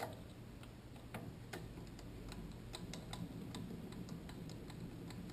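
Faint, uneven light ticks and clicks, a few a second, from a small lathe's cross slide being cranked by hand through its travel.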